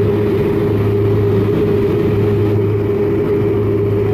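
Steady, loud drone of a small twin-engine propeller plane heard inside the cabin: engines and propellers running at constant cruise power, with a low hum and a higher steady tone.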